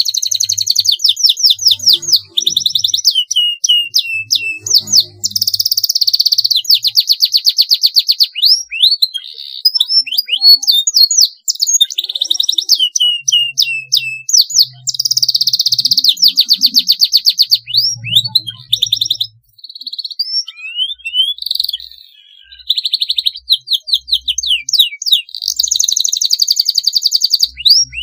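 Domestic canary singing a long, continuous song of rapid rolling trills broken by quick rising and falling whistled notes, pausing only briefly a few times.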